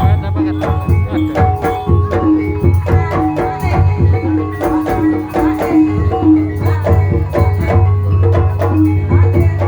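Gamelan accompaniment for an ebeg dance: struck pitched percussion plays fast, repeating note patterns over steady drumming.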